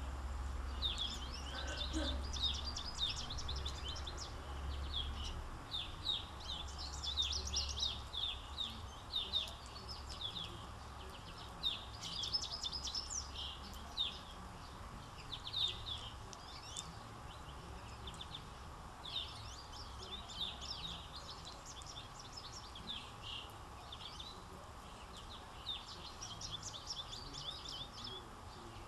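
Small songbirds chirping and twittering in many quick, high, short calls, with a low steady rumble underneath during the first half.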